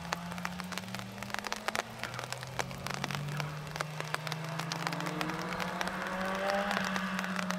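Race car engines running at a distance, their pitch slowly rising and falling as the cars accelerate and lift through the slalom, growing a little louder near the end. Short sharp ticks are scattered throughout.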